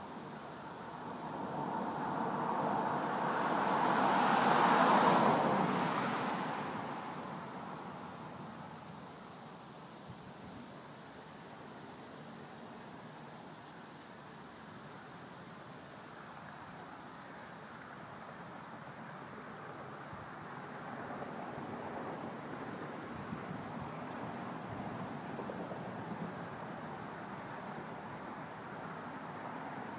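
Insects chirping steadily. A vehicle passes on the road, swelling up and fading away about five seconds in, and a fainter vehicle approaches in the second half.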